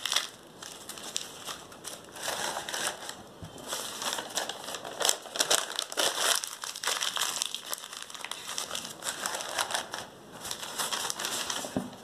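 Old newspaper being scrunched by hand into balls around lemons: an irregular crackling paper rustle, with brief lulls just after the start and about ten seconds in.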